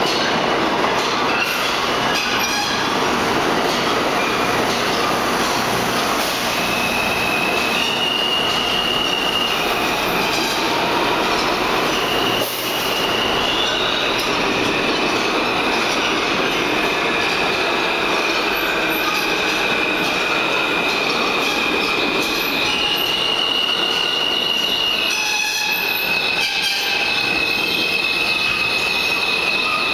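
New York City subway train of R160A and R160B cars rolling through an underground station without stopping: a steady rumble of wheels on rail, with a high squeal that holds and jumps between two close pitches. A few sharp clacks sound partway through and near the end.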